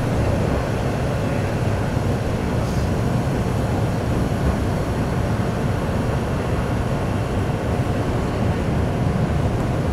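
Keikyu New 1000 series electric train with Toyo IGBT-VVVF inverter running, heard from inside the passenger car: a steady, even rumble of wheels on the rails.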